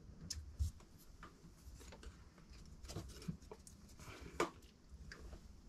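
Light clicks and taps of thin laser-cut plywood pieces being picked up and pressed into the slots of a wooden frame, with one sharper click about four and a half seconds in.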